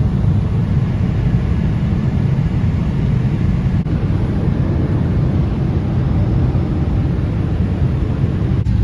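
Steady low rumble of a jet airliner's cabin in cruise: engine and airflow noise.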